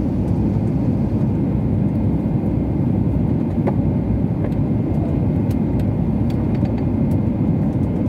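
Steady low rumble inside an airliner cabin during descent for landing: the wing-mounted turbofan engine and the rush of air past the fuselage, heard from a window seat beside the engine.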